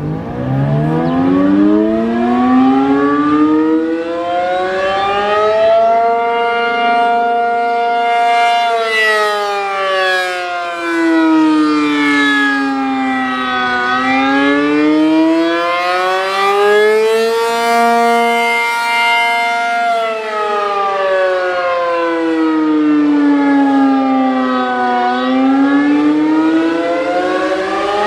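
ACA P-50 rotating outdoor warning siren winding up from a low pitch, then sounding the Attack signal: a slow wail that rises, holds briefly at the top and falls, about every 11 seconds.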